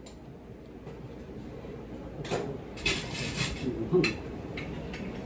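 A man drinking beer from a glass over the low background of a small restaurant, with scattered clatters and a short sharp knock about four seconds in.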